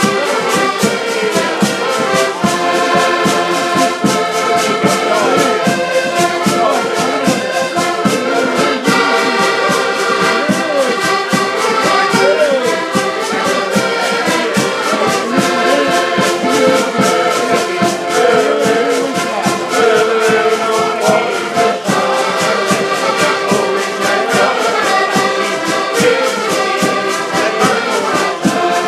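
A group of about ten button accordions playing a lively tune together, with a steady beat and full chords.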